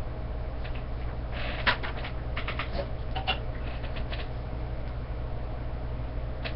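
Handling noise from assembling a TV antenna: paper rustling and a run of light clicks and knocks from the instruction sheet and the metal antenna elements, the sharpest click about two seconds in, over a steady low hum.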